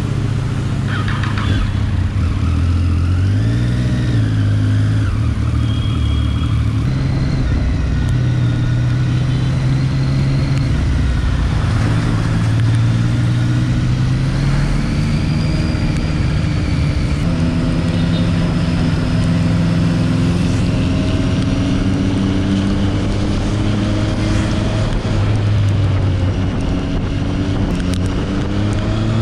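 Triumph Street Triple 675's inline three-cylinder engine, fitted with an Arrow exhaust, pulling away and riding on, its pitch rising and falling again and again as it accelerates and shifts gears.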